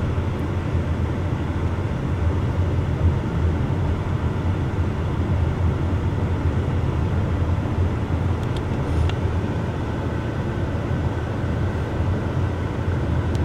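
Steady low rumble of a car's engine and tyres, heard from inside the cabin as the car drives along slowly.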